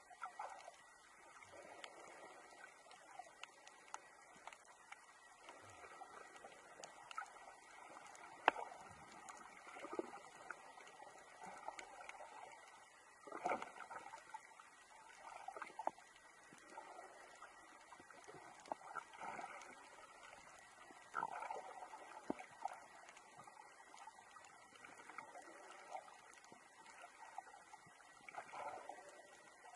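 Faint underwater sound as picked up by a submerged camera: a steady high tone, with irregular gurgles and clicks every few seconds.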